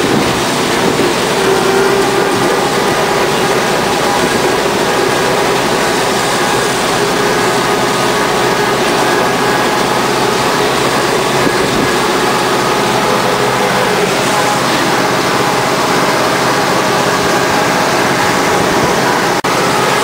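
Tractor engine and grass mower running steadily under load, heard from inside the tractor cab: a constant, loud mechanical drone with rattle.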